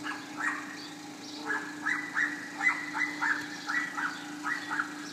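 An animal calling in a quick series of short calls, two or three a second, over a steady low hum.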